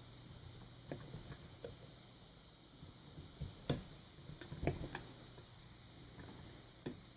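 Faint scratching and small clicks of a lock pick working the pins inside a Yale padlock's keyway under tension, with a couple of sharper clicks about halfway through.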